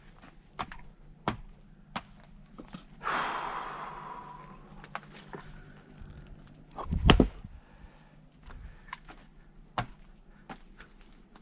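Firewood being split with an axe: one heavy chopping strike about seven seconds in, the loudest sound here. There is also a longer rattling, ringing sound about three seconds in, and scattered small knocks of wood being handled.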